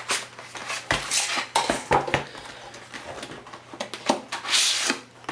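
A product box and its packaging being handled and opened: a string of light knocks and clicks, with a longer rustling scrape near the end.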